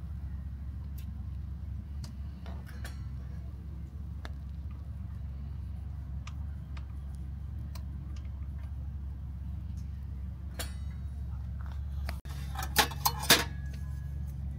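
A rice paddle scraping and tapping against a Snow Peak Micro Oval Dutch Oven while cooked rice is fluffed and scooped: scattered light clicks, then a short run of louder clinks near the end. A steady low hum runs underneath.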